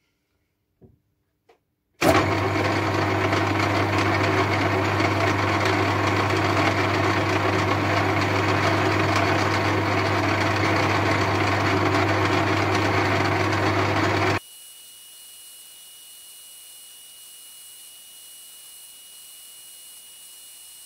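Metal lathe running, a loud steady machine noise with a strong low hum, starting suddenly about two seconds in. It cuts off abruptly after about twelve seconds, leaving a faint steady hum with a thin high whine.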